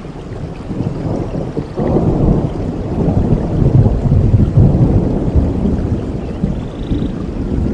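Forest stream water flowing, a loud low rushing that swells about two seconds in and eases off near the end.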